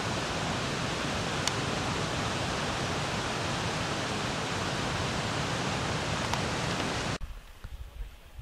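A steady, even hiss that cuts off suddenly about seven seconds in, leaving only a faint, uneven low rumble of wind on the microphone.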